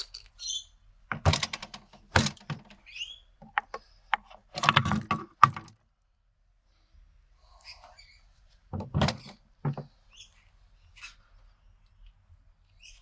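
Metal parts of a BTR four-speed automatic transmission being handled during its teardown: sharp knocks and clatter in three short bursts, each about a second long.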